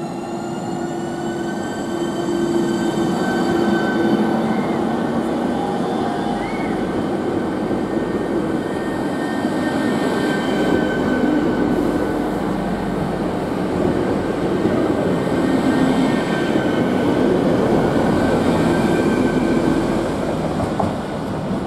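ČD InterPanter electric multiple unit running into the station past the platform. Its traction equipment whines in several tones that rise in pitch over the first couple of seconds and then hold steady, over loud rolling wheel noise on the rails.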